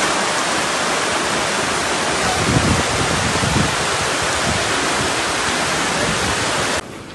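Floodwater rushing, a loud steady roar of water that cuts off suddenly near the end.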